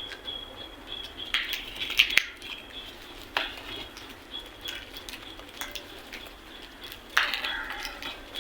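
Birds calling: a high thin chirp repeating on and off, with several louder harsh calls about a second in, around three and a half seconds in, and near the end, plus a few sharp clicks.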